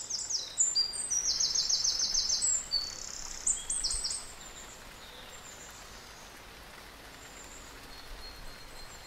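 Wild birds singing in short high chirps, with a fast trill of repeated notes, over a steady hiss of light rain. The birdsong stops about four seconds in, leaving only the faint steady rain.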